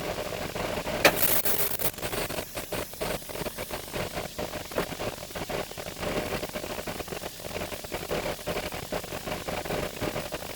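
Concrete mixer truck's diesel engine idling with an uneven, knocking pulse. About a second in, there is a short sharp hiss lasting under a second.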